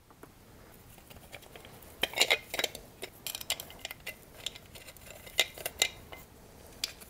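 Small steel bolts clinking and tapping against the metal hub plate of a snowblower friction disc assembly as they are set in and threaded by hand: a few light clusters of clinks.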